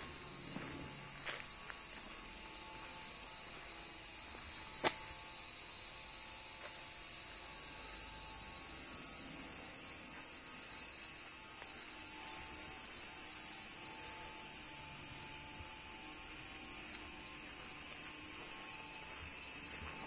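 Cicadas in a loud, steady, high-pitched chorus. The pitch sinks slowly for a few seconds and then jumps back up a little before halfway.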